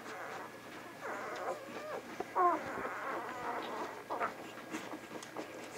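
Newborn vizsla puppies squeaking, grunting and whining as they nurse, many small overlapping calls, with one louder whine about two and a half seconds in.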